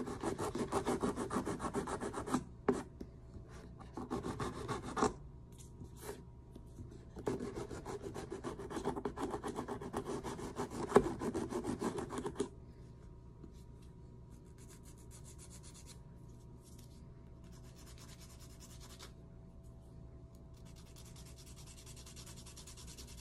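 Nail file rasping back and forth across nails in quick strokes, in several bouts with short pauses. After about twelve seconds the strokes become much fainter.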